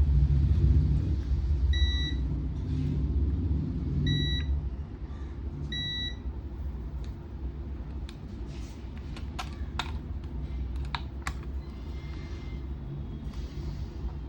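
Three short electronic beeps about two seconds apart, typical of a digital multimeter's test beeper while components on the power supply board are checked, followed by a handful of sharp clicks, over a low background rumble.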